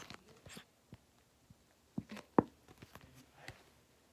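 Handling noise in a quiet room: a few scattered soft clicks and knocks, the sharpest about two and a half seconds in.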